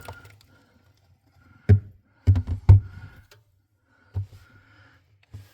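A few dull knocks and bumps from handling, one about two seconds in followed by a quick cluster of three, then two more, with quiet gaps between.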